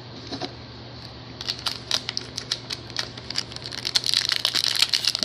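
Trading cards and card packs being handled: quick light clicks and rustles from cards being flipped and shuffled in the hands, growing busier toward the end.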